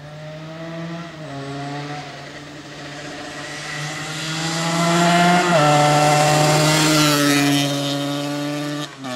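Yamaha DT 125's two-stroke single-cylinder engine through a Giannelli exhaust, accelerating hard. The pitch climbs and drops sharply at two gear changes, and it grows louder as the bike comes past, then eases off.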